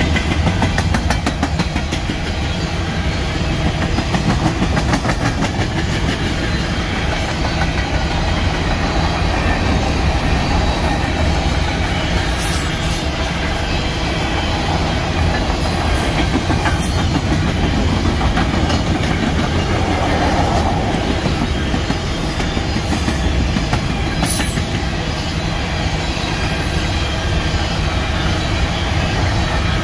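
Empty potash covered hopper cars of a freight train rolling past, steel wheels clattering over the rail with a steady, loud rumble. A few sharp ticks stand out about midway and near the end.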